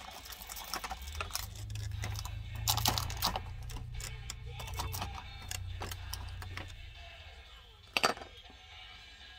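Clear plastic blister tray handled and rattled while small kit parts are picked out of it: irregular light clicks and rattles, with one sharp click about eight seconds in.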